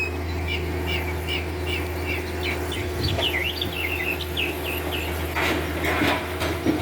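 A small bird chirping in a quick run of short rising and falling notes, over a steady low engine drone from the working excavator.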